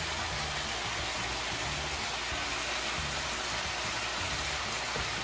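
Beef strips with onion and garlic sizzling steadily in olive oil in a frying pan, searing.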